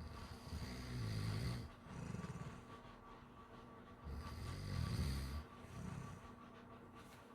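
A pit bull–Labrador mix dog snoring. Two slow breath cycles, about three and a half seconds apart, each a low, fluttering snore followed by a shorter, softer one.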